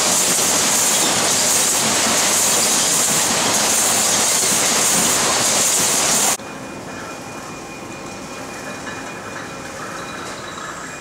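Pot-handling machinery of an automated greenhouse bench system running: a loud, steady hissing machine noise cuts off abruptly about six seconds in. A quieter hum follows, with a few steady whining tones.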